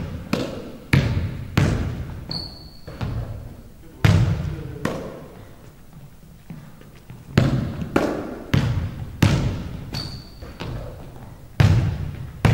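A basketball being dribbled on a hardwood gym floor: a bounce about every 0.6 seconds, each echoing in the big hall, with a pause of about two seconds in the middle. Sneakers squeak briefly on the floor twice.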